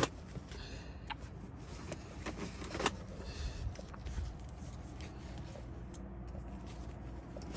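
Joie infant car seat harness being fastened: straps rustling and scraping, with a sharp buckle click at the start and a few lighter clicks afterwards, over a low steady rumble.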